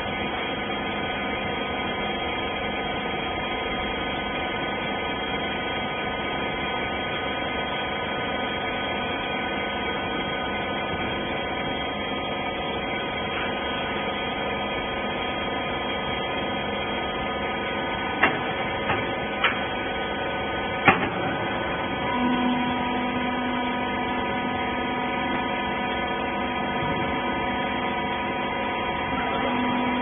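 Hydraulic rag baler's power pack, its electric motor and pump, running with a steady multi-toned hum. Three sharp clicks come a little past the middle, and a further low steady note joins the hum about two-thirds of the way through.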